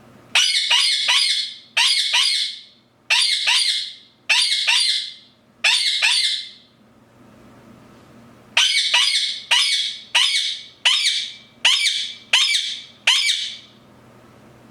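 Indian ringneck parakeet giving harsh, loud screeches in two runs of quick repeated calls, with a pause of about two seconds between the runs.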